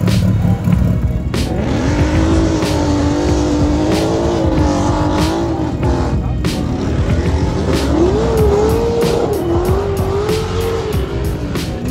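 A car's engine held at high revs with its tyres squealing, the pitch wavering up and down, over background music with a beat.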